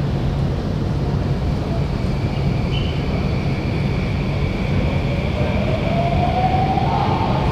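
Downtown Line MRT train pulling out of the station: a steady low rumble and hum, with the motor whine rising in pitch over the last couple of seconds as it accelerates away.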